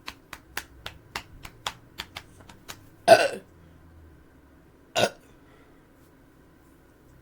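A person burping: a loud burp about three seconds in, then a shorter second burp around five seconds. Before it, a quick run of small clicks, about four a second, stops just before the first burp.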